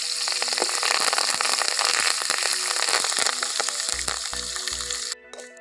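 Curry leaves frying in hot oil in a tempering of mustard seeds, dals, cashews and green chillies, sizzling with dense crackling in an aluminium kadai as they are stirred with a wooden spatula. The sizzle cuts off suddenly about five seconds in.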